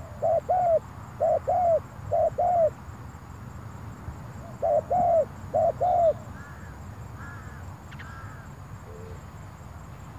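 Spotted dove cooing: short arched coos in pairs, three pairs quickly, a pause of about two seconds, then two more pairs. After that come a few fainter, higher notes.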